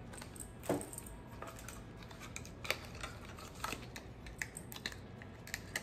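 Light, irregular clicks and taps of makeup packaging being handled and set down.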